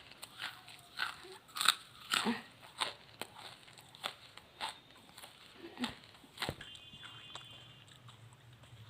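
A person biting and chewing charcoal, with a string of sharp, irregular crunches about one to two a second that die away near the end.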